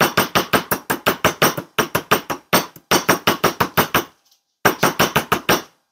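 Plastic-headed mallet tapping 14-gauge copper wire against a metal bench block in quick runs of about five light strikes a second, with a brief pause about four seconds in. The wire is being straightened by hammering it while twisting it between blows.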